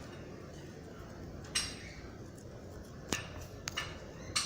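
Four light knocks and clinks of small hard objects being handled and set down on a tabletop.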